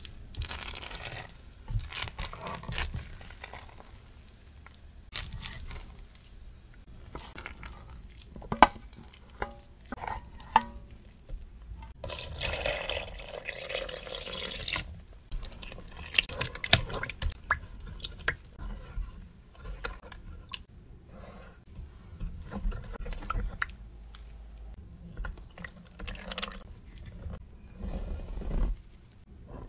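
Handling sounds of ingredients being combined in a plastic tub, with scattered clicks and taps of containers and utensils. About twelve seconds in, water is poured onto the poolish for about three seconds.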